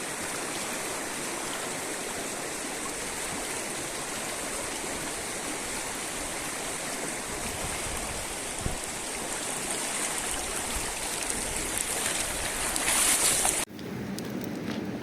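Rushing river water, a steady hiss that swells louder near the end, then cuts off abruptly to a quieter background shortly before the end.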